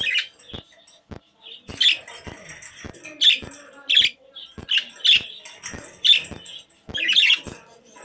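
Pet budgerigars chirping and chattering: short, high chirps in quick succession, with sharp ticks about twice a second throughout.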